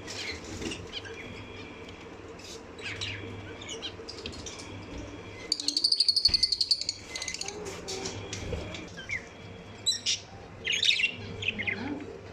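Pet lovebirds chirping, with a fast, rapidly repeating high chatter lasting about a second and a half around the middle, then a few sharp chirps near the end.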